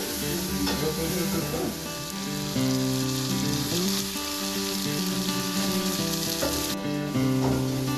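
Omena (small dried fish) frying with tomatoes in a metal pot, a steady sizzle, while a spoon stirs and scrapes through the fish.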